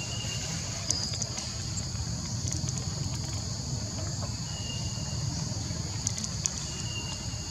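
Steady high-pitched drone of an outdoor insect chorus over a low rumble, with a few short thin high notes and scattered light clicks.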